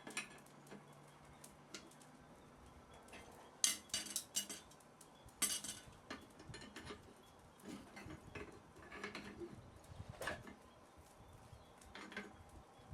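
Irregular light metallic clinks and clatter, in a few short clusters, of steel tools and small iron pieces being handled and set down in a blacksmith's shop.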